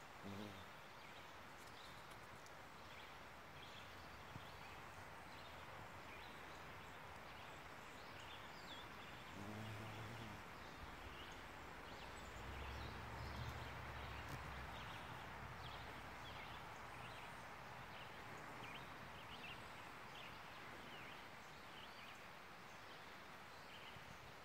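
Faint outdoor field ambience: a steady hiss with many short, high chirps scattered throughout. A brief low hum comes about ten seconds in, and a low rumble follows from about twelve to fourteen seconds.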